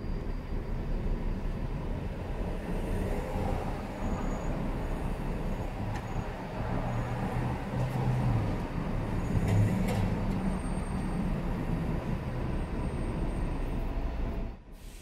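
City bus engine running close ahead in slow street traffic, a steady low rumble; it drops away abruptly near the end.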